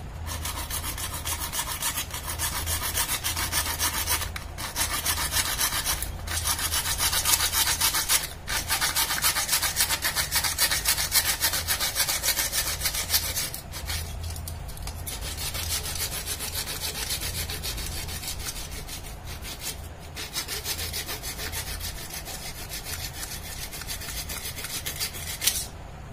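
Small homemade hand saw cutting through thick PVC pipe: quick back-and-forth rasping strokes, broken by a few short pauses. A single sharp tap near the end as the cut goes through.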